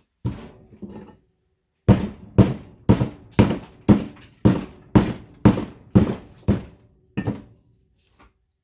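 Repeated hammer blows on a light ballast's steel case, about two a second in a steady run of around ten strikes, each with a short metallic ring, as it is battered open to get at the copper windings.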